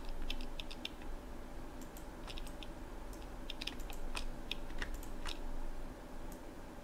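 Irregular clicks of a computer mouse and keyboard, many short taps in small clusters, over a faint steady hum.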